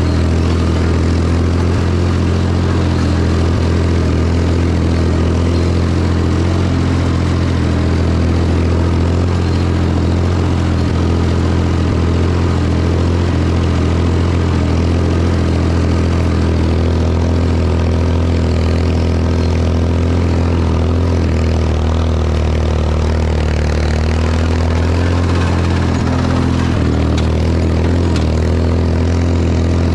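Ford 4000 tractor engine running steadily while pulling and powering a New Holland 273 hay baler. Its pitch dips briefly about three-quarters of the way through, then steadies again.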